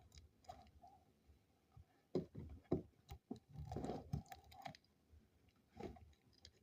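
Hands picking and peeling packing tape off a new laptop: faint scattered clicks and crinkles, most of them clustered about two to four seconds in.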